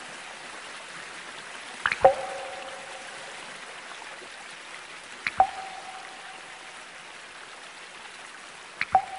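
Electronic dark-ambient soundtrack of steady flowing-water hiss with water drops plinking three times, about three and a half seconds apart. Each drop is a sharp click followed by a short ringing tone.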